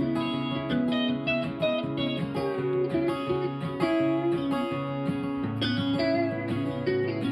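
Instrumental break in a folk-country song with no singing: guitars playing a melody line over chords, with a steady run of plucked notes and sustained low notes underneath.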